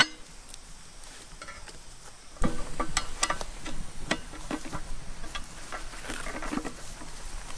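Wood campfire crackling, with irregular sharp pops and clicks over a low hiss; it gets louder about two and a half seconds in.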